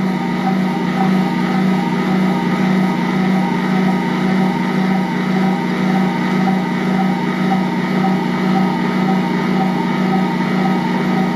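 Assistent Original stand mixer running, its motor turning the stainless steel bowl while the roller kneads a 1 kg batch of bread dough. A steady motor hum with a regular pulse.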